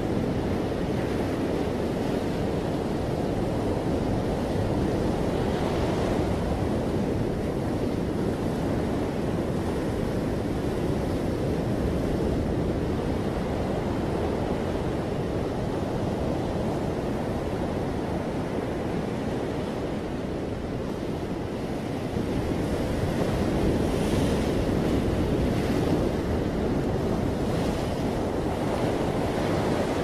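Ocean surf breaking and washing up a beach, a continuous rushing wash that eases slightly about two-thirds of the way through and then builds again.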